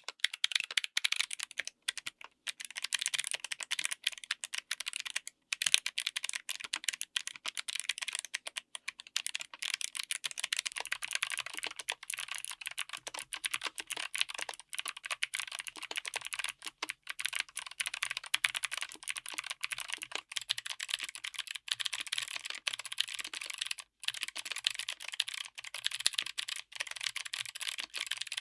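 Fast, continuous typing on a mechanical keyboard fitted with clicky switches: a dense stream of sharp, crisp key clicks, with a couple of brief pauses.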